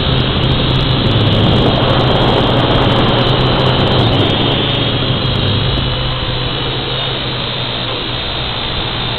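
Steady rush of wind over the microphone with a constant low motor hum, as heard from a camera on board a flying model aircraft. It is a little louder for the first few seconds, then eases slightly.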